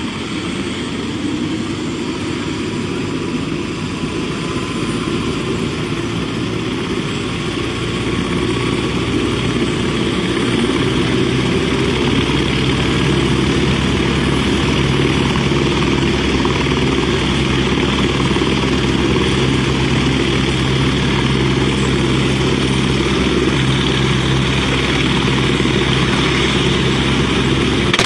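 Helicopter engine and rotor running with a steady drone, growing louder about ten seconds in and then holding steady.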